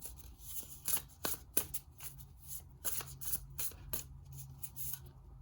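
A deck of cards being shuffled by hand: a run of irregular quick snaps and slaps that stops near the end.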